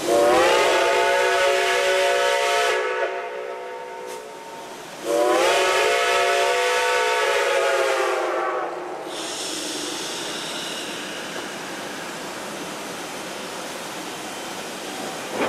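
Steam locomotive's chime whistle blown in two long blasts, each sounding a chord of several notes that slides up in pitch as it opens, with a hiss after the second.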